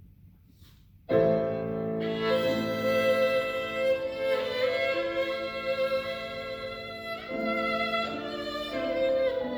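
Violin playing a melody with piano accompaniment, starting suddenly about a second in after a short pause.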